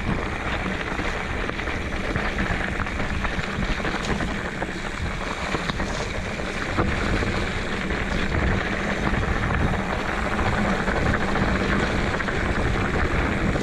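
Steady rush of wind over the microphone and rumbling tyre noise from riding down a dirt trail.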